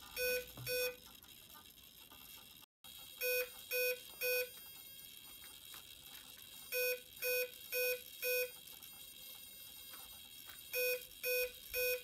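Kontronik Kolibri 140 LV ESC beeping through the Pyro 650 motor in programming mode: short beeps all on one pitch, in groups of two, then three, then four, with another group starting near the end. The groups count up through the ESC's programming modes.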